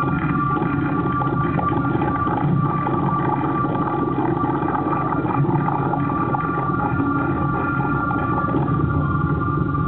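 A light-and-sound show soundtrack over outdoor loudspeakers: steady held tones above a dense low rumble, with no clear beat.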